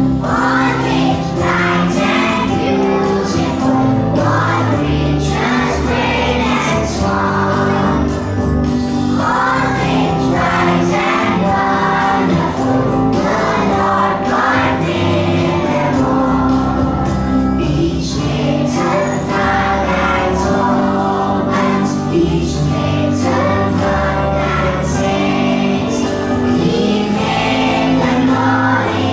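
A group singing a song over steady instrumental accompaniment.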